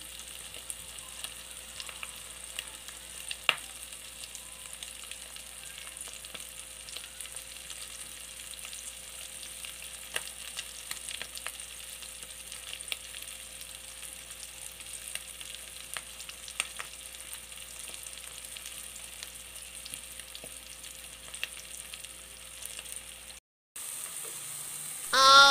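Egg-and-fresh-krill (alamang) omelette frying in oil in a pan: a steady sizzle with scattered crackles and pops, one sharper pop a few seconds in. Right at the end a louder wavering pitched sound cuts in.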